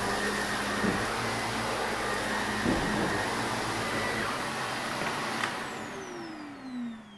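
Shark upright vacuum cleaner running on carpet with a steady motor whine. About five and a half seconds in there is a click, and the motor's pitch then falls as it winds down and fades: the vacuum has been switched off.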